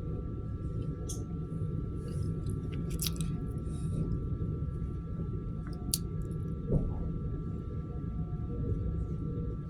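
Suburban electric train running between stations, heard from inside the carriage: a steady low rumble of wheels on the track with a constant faint high hum. A few sharp clicks and knocks come through, about a second in, around three seconds, and twice near six to seven seconds.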